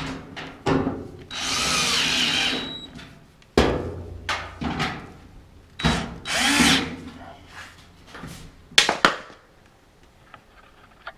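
Power drill/driver running in two short bursts, its pitch rising and falling, driving screws to fasten the dryer's cover panel back on. Sharp knocks and clanks of the sheet-metal panel come in between.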